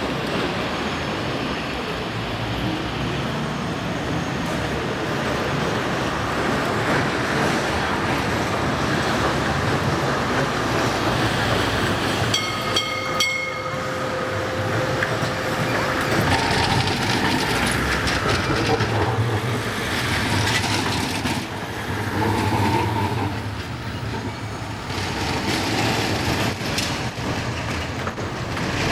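TFS low-floor trams running along street track, steel wheels on rails, with a steady rumble. A brief pitched ringing tone sounds about twelve seconds in.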